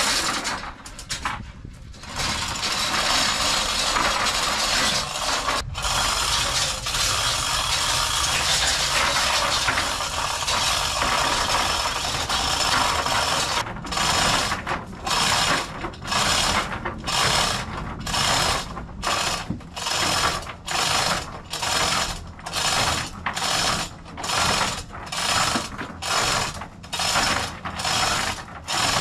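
Manual chain hoist being worked to lift a sawmill head. First comes a continuous rattle of chain running through the hoist for about ten seconds. Then a steady rhythm of hand-chain pulls, a little more than one a second, with the ratchet pawl clicking.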